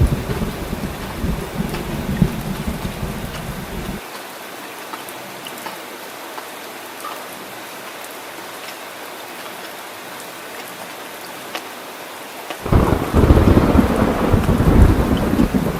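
Heavy rain falling steadily, with thunder rumbling low beneath it. The rumble stops abruptly about four seconds in, leaving only the rain's hiss, then comes back suddenly and louder near the end.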